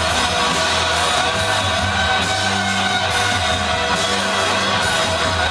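Live rock band playing loudly and steadily: electric guitars, bass and drums with cymbal hits.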